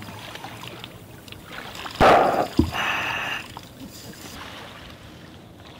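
River water splashing and sloshing around a diver moving along the bank, with one sharp, loud splash about two seconds in, then a brief thump and a short trickle.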